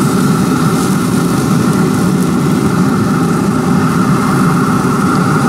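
A motor running steadily: a continuous, even drone with no change in speed.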